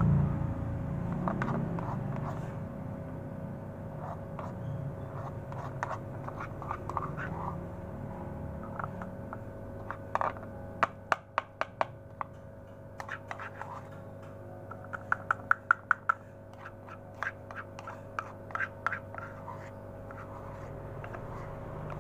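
Metal spoon scraping and tapping against a plastic bowl and small plastic cups while pellets are scooped and portioned. The taps are scattered, with two quick runs of sharper clicks near the middle.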